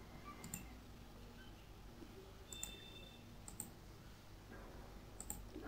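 Computer mouse clicking: about four short, faint clicks a second or so apart, over a low room hum.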